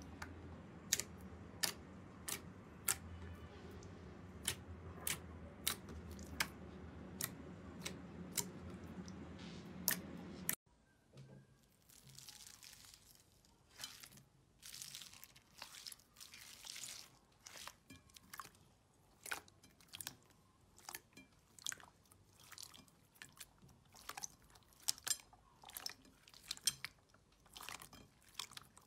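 Thick lavender slime poked and pressed with the fingers, giving sharp pops about once or twice a second over a steady low hum. About ten seconds in it cuts to clear slime packed with foam beads being squeezed and kneaded, with dense crunchy crackling and squishing.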